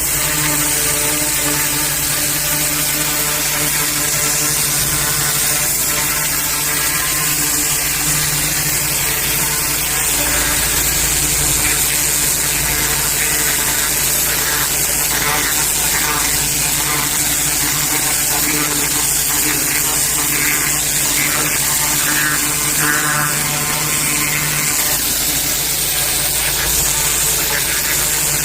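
Pressure washer running steadily: a constant machine hum under a loud high hiss of water spraying, with some uneven spattering texture in the middle of the stretch.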